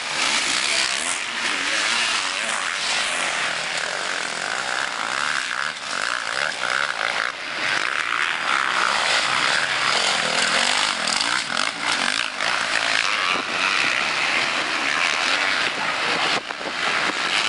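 Motocross bikes' engines running and revving hard on a dirt track, their pitch rising and falling as the riders pass and accelerate.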